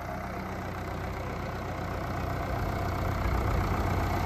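Preet 6049 tractor's diesel engine running steadily as the tractor drives slowly in low gear, growing gradually louder as it comes closer.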